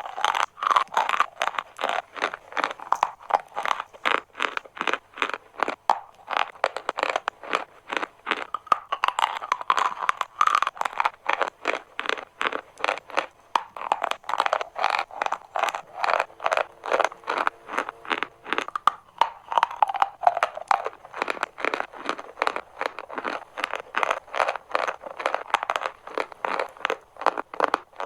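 Chalk crunching and crumbling in a steady, unbroken run of crisp crunches, several a second.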